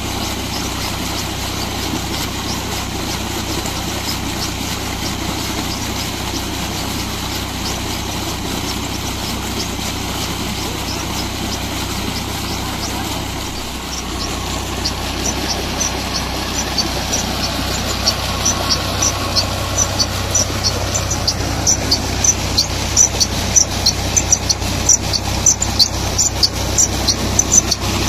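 New Holland tractor engine running steadily while it drives a tubewell pump, with water gushing from the discharge pipe. From about halfway a rhythmic high chirp of about two a second comes in and grows louder toward the end.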